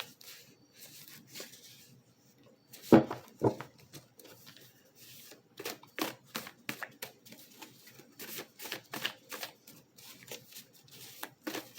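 Tarot cards being handled and shuffled, giving a run of short sharp flicks and clicks, with two louder knocks about three seconds in.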